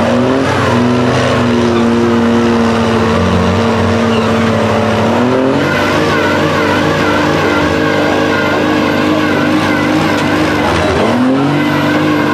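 Dodge mega truck's Cummins diesel engine held at high revs under heavy load. Its revs climb just after the start, hold, climb again about five seconds in, then dip briefly and pick back up near the end.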